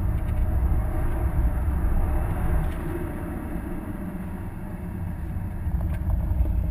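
Cabin sound of a 2011 Subaru WRX driven on a wet track: its turbocharged EJ255 flat-four engine and deep road and tyre rumble. The sound eases off a little about halfway and builds again near the end.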